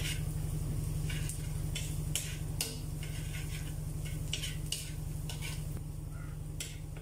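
A metal spatula scraping and tapping against a wok, about a dozen times, as minced garlic is stirred in melted butter, over a faint sizzle and a steady low hum.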